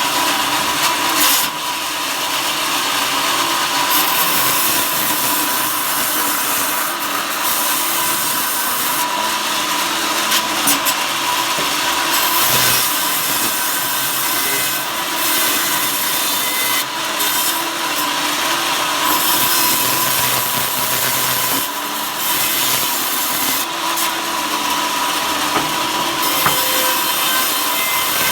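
Power saw cutting wood into thin slats: continuous loud cutting noise over a steady motor whine, changing in character every few seconds as the cuts go on.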